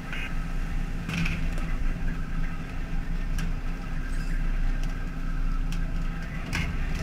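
Fishing boat's engine running with a steady low hum under a wash of water noise, broken by a few sharp knocks.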